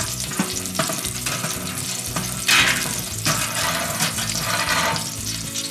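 Thick T-bone steak sizzling on the steel grate of a gas-fired overhead infrared grill, with a steady frying hiss. There is a brief louder rush about two and a half seconds in.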